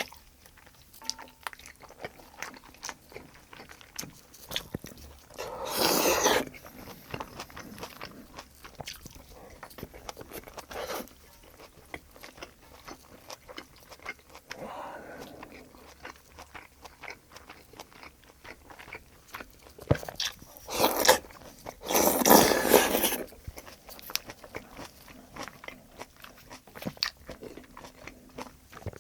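Close-miked chewing of braised kimchi stew and rice: a run of wet mouth clicks and crunches, with a few louder noisy bites or slurps of about a second each, at about six seconds in and twice about 21 to 23 seconds in.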